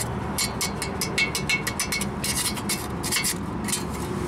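Hand file rasping rust scale off a corroded steering knuckle where the ABS wheel-speed sensor seats, in short strokes that come in quick bursts about once a second, over a steady low hum.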